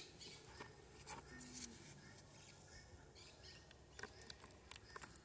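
Faint, sporadic wet clicks and drips of thin cement-and-sand slurry as a cardboard box is dipped into a plastic basin and lifted out dripping.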